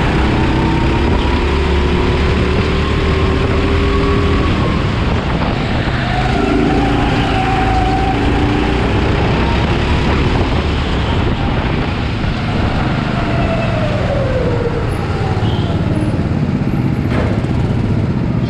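Honda GX270 single-cylinder four-stroke engine of a Rimo EVO6 rental kart running close to the microphone under load, its pitch rising and falling with the throttle through the corners, with other karts' engines mixed in. Near the end the engine note falls away as the kart slows, and a single sharp knock follows.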